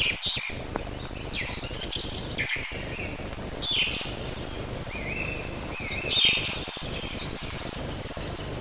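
Small songbirds chirping and singing short phrases every second or two, some sweeping up or down, over a steady hiss; the loudest phrase comes about six seconds in.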